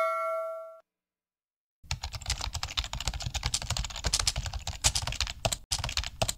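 A bell chime fades out in the first second. After a short gap comes a dense, irregular run of small clicks and knocks as hands and a screwdriver work the plastic air filter housing off a Bravo CX160 engine's carburettor.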